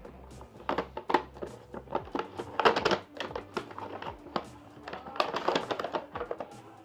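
An action camera's box and plastic packaging being opened by hand: a string of sharp clicks, taps and rustles, over background music.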